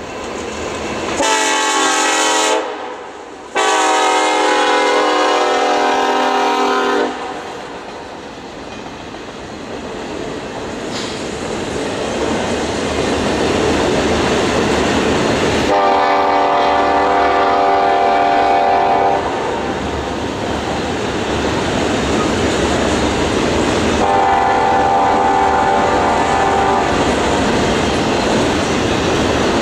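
CN freight locomotive air horn sounding four blasts: a short one about a second in, a long one right after, then two more, the last fainter. Between and under the blasts the passing double-stack container train rumbles and its wheels clatter over the rail joints.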